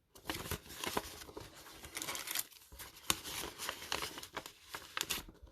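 Security envelopes and booster-pack wrappers rustling and crinkling as they are handled and packed, with irregular small ticks and taps.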